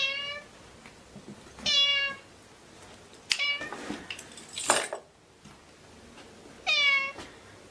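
A cat meowing four times, short calls that fall in pitch at the end, spaced one to three seconds apart. A brief noisy rush comes between the third and fourth meow.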